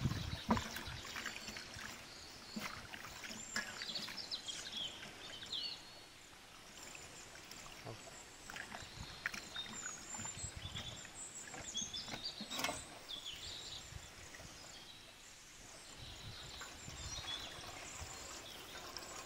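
Hands washing chunks of raw rohu fish in water in a steel pot: soft, intermittent sloshing and squelching, with an occasional sharp knock of fish against the metal. Near the end, the wash water is poured off into another pot.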